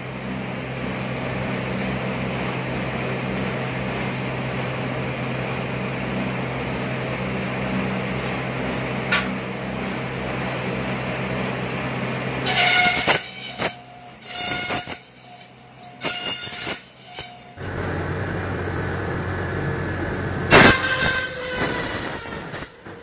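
Motor-driven bamboo satay-skewer slicing and planing machine running with a steady hum. From about halfway, bamboo strips fed through its rollers and blades make loud, irregular bursts of cutting noise, and another loud burst comes near the end.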